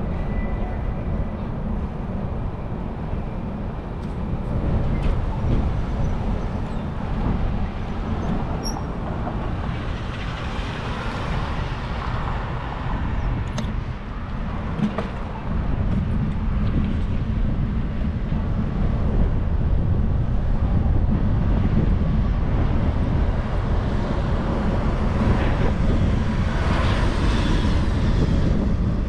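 City street traffic heard from a moving bicycle: a steady low rumble with vehicles passing, swelling louder about a third of the way in and again near the end.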